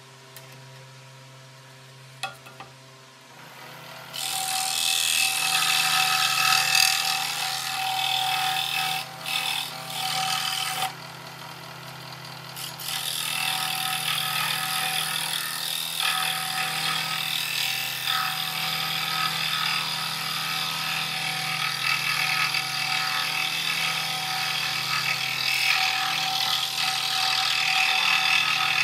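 Scroll saw cutting through a wooden board: a steady sawing noise with a high steady tone. It starts about four seconds in, after a single click, and drops away briefly near the middle before carrying on.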